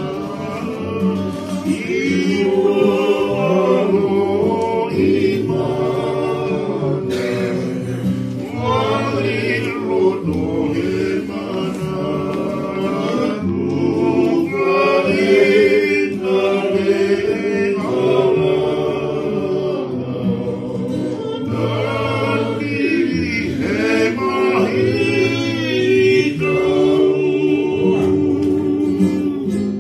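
A group of voices singing a song together in sustained phrases, accompanied by a strummed acoustic guitar.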